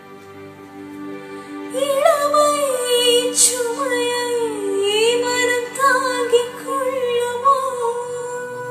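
Electronic keyboard holding soft sustained chords, joined about two seconds in by a woman singing a slow melodic phrase with gliding, wavering ornaments; her voice fades out near the end while the keyboard chord rings on.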